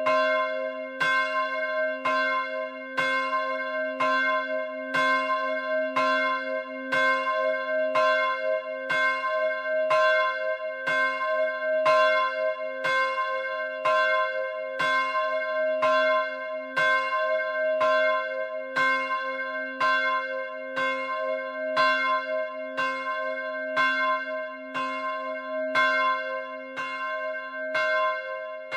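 Rudolf Perner (Passau, 2009) church bell, 75.5 cm and 245 kg, tuned to c'', swinging and ringing alone. Its clapper strikes evenly about once a second, and the bell rings on between strokes.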